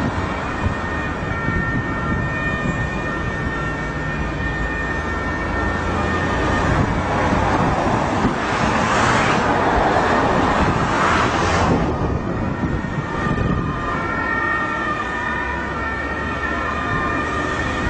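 Motorway traffic noise: the tyre and engine hiss of cars and a lorry, swelling as vehicles pass about halfway through.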